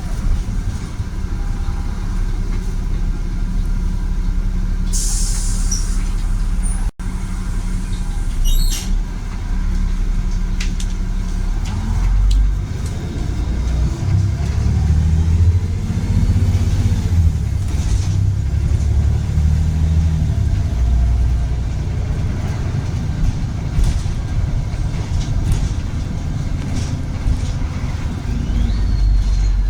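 Volvo B7RLE bus with a Voith automatic gearbox, heard from on board. Its diesel engine runs steadily with a short hiss of released air about five seconds in. From about twelve seconds in, the engine note rises and steps as the bus pulls away and changes gear.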